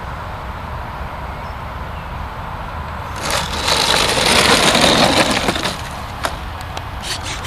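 Electric RC aerobatic plane passing close: the propeller and motor noise swells for about three seconds and then fades, over a steady low rumble. A single sharp click comes near the end.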